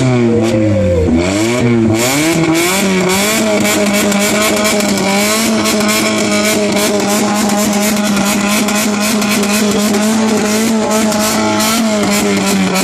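Alfa Romeo GT engine and exhaust revved while stationary: a few quick blips of the throttle, then held at high revs for about nine seconds, dropping back near the end.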